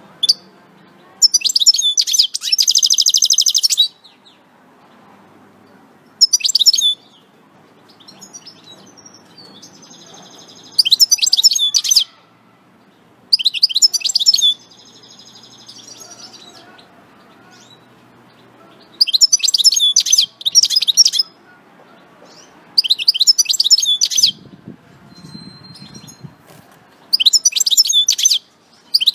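European goldfinch singing in about seven bursts of rapid twittering song a few seconds apart, several of them with drawn-out buzzy notes mixed into the twitters.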